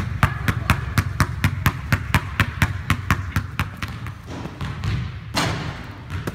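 Basketball dribbled rapidly and low on a hardwood gym floor, about four bounces a second, thinning out after about four seconds. A short rush of noise comes about five seconds in.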